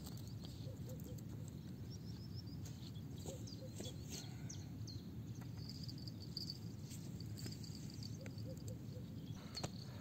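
Quiet riverbank ambience at dawn: faint bird chirps and trills and insect calls over a low, steady background hum.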